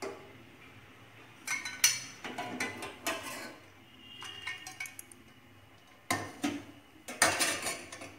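Steel spoon clinking and scraping against stainless steel pans and a steel bowl as boiled eggs are lifted out and moved into cold water. Scattered clinks and knocks, a few with a short metallic ring, with a cluster of louder knocks near the end.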